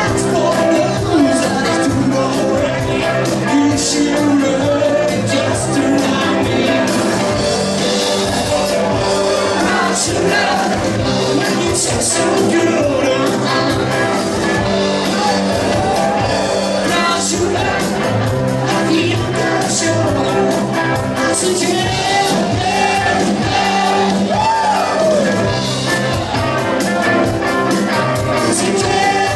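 Live rock band playing a 1970s medley: electric guitars, bass, keyboards and a steady drumbeat under a sung lead vocal.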